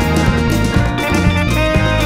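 Psychedelic rock band playing: guitar over bass and drums with a steady, even beat.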